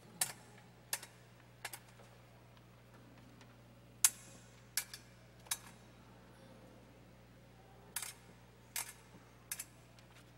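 Sharp, bright clicks in three sets of three, about three-quarters of a second apart within each set, with a pause of about two seconds between sets.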